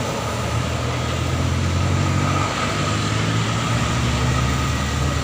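Large tour bus's diesel engine running close by, a steady low rumble that shifts slightly about halfway through.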